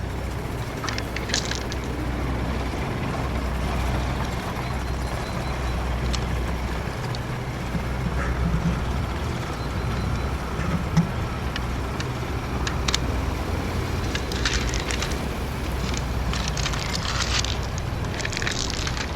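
Toy excavator working a load of stones, with short bursts of stones clattering and scraping against plastic, several of them in the second half, over a steady low rumble.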